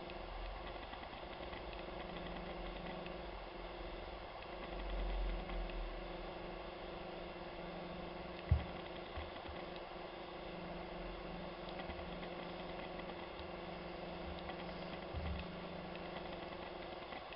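A steady hum with a few low knocks and thuds, the sharpest about halfway through.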